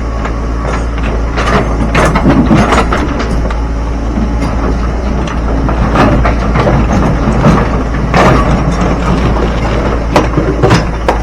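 Excavator's diesel engine running steadily while its bucket scoops broken rock, with repeated loud clattering and banging of rocks scraping and dropping, several times over.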